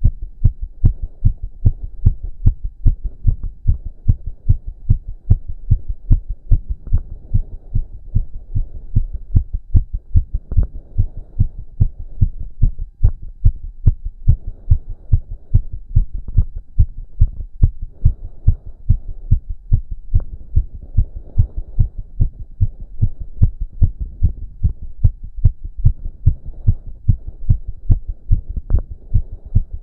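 A man's heart beating fast and hard after exercise, a steady quick train of deep thuds. A soft rushing sound, heavy breathing, swells and fades under the beats every few seconds.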